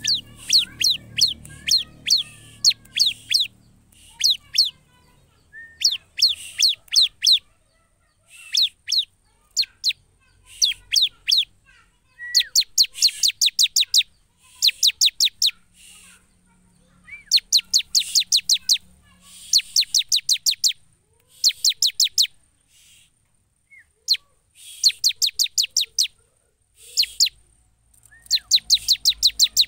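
Ciblek (bar-winged prinia) singing in its 'gacor' full-song mode: bursts of rapid, sharp, high chirps, each burst a quick string of notes, repeated every second or two with short pauses between.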